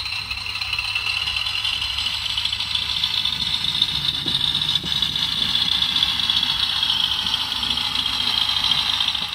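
Small model narrow-gauge locomotive running along the track, a steady high whirring hiss over a faint low hum that grows slightly louder as it comes closer.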